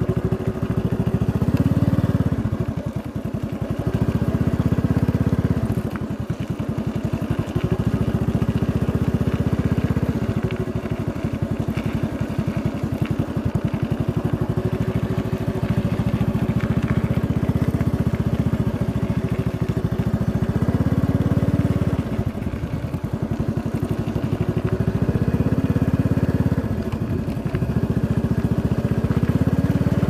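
A vehicle's engine running on the move, a low rumble that swells and eases every two to three seconds.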